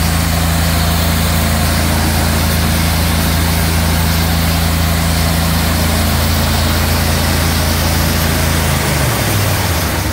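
Engine-driven high-pressure washer running steadily under load, with its water jet hissing hard from the nozzle. Near the end the engine note drops as it slows down.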